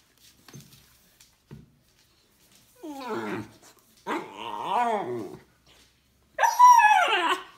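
A puppy giving three drawn-out grumbling, howl-like calls that rise and fall in pitch, about three, four and six and a half seconds in; the last is the loudest. This is the dog's 'scolding' talk, not barking.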